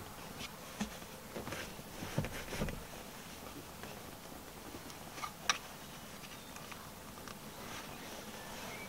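Scattered clicks and light knocks of metal seat fittings and tools being handled while the seat is bolted back in, a cluster of them around two seconds in and a sharp click about five and a half seconds in, over a steady faint hiss.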